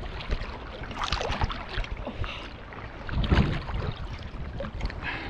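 Seawater splashing and sloshing close to a camera held at the water's surface, as a swimmer ducks under and comes back up. A louder low rumble on the microphone about three seconds in.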